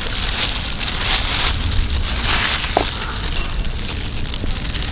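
Clear plastic food gloves and a plastic bag crinkling and rustling as fish balls and small sausages are pushed onto bamboo skewers, with a steady low rumble underneath.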